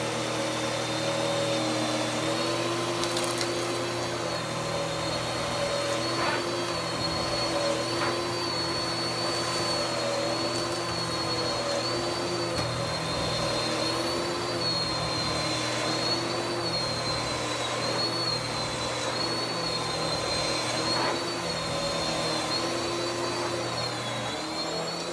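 Kenmore Magic Blue DX bagged vacuum cleaner running steadily while vacuuming carpet, its motor whine wavering slightly in pitch, then cutting off at the very end.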